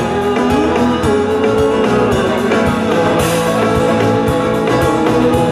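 Live band playing rock music on an outdoor stage: electric guitar and drum kit.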